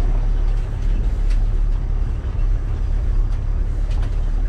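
Vehicle with dog boxes on the back driving along a rough dirt track: a steady heavy low rumble of engine, road and wind, with scattered sharp knocks and rattles.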